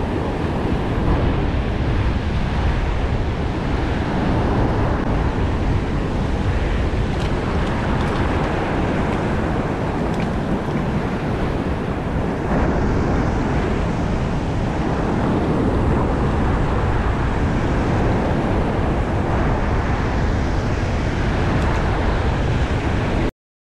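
Ocean surf breaking and washing over a rocky shoreline, with wind buffeting the microphone. It cuts off suddenly at the very end.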